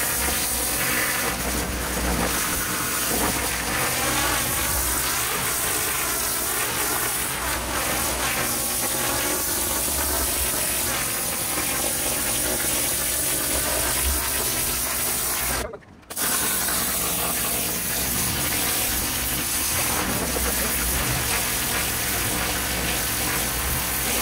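Pressure washer jet spraying water, a steady hiss with a low hum under it, broken off briefly about two-thirds of the way through before it resumes.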